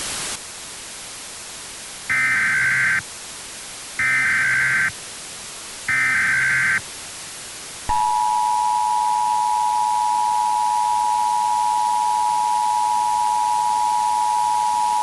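Emergency Alert System alert tones: three short bursts of digital SAME header data about two seconds apart, then the steady two-tone attention signal starting about eight seconds in, over a faint hiss. They announce a hazardous-materials emergency alert.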